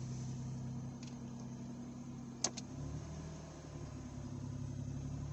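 Ford EL Falcon six-cylinder engine idling steadily, with a single sharp click about two and a half seconds in as the dual-fuel system is switched from LPG to petrol. The engine note changes just after the click and the engine keeps idling on petrol.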